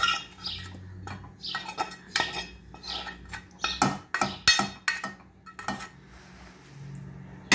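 A utensil scraping and knocking against a metal pan as sticky caramelized onion, dried apricots and raisins are scraped out into a pot of cooked rice: a run of irregular scrapes and clinks that thins out near the end.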